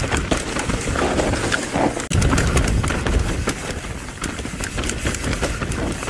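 Mountain bike, a Specialized Stumpjumper EVO, ridden down a rough, rocky trail: the tyres rumble over dirt and rock while the bike clatters with many sharp knocks.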